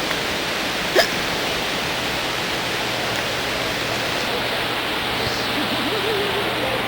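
Steady rush of falling water from a waterfall water feature. About a second in, one short, sharp hiccup cuts through it.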